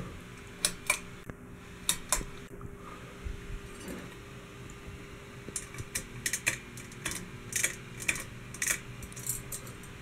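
Ceiling fan pull chain being tugged: sharp clicks of the pull-chain switch and the metal bead chain jingling against the fixture. The clicks come in pairs in the first couple of seconds, then in a quick run over the last four seconds. Underneath is a faint steady hum from the running fan.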